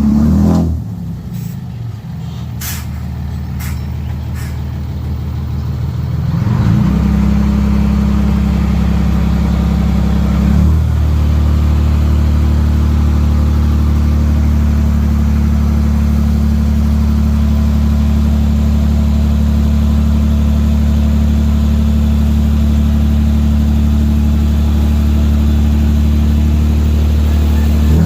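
Heavy diesel earthmoving machine engine: a few sharp knocks in the first five seconds, then the engine revs up about six seconds in, steps up again near eleven seconds, and runs steadily at high revs under load.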